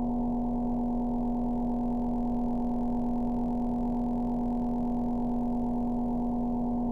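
Creepy horror sound effect: a steady, unchanging low drone, one strong tone with a cluster of fainter tones above it.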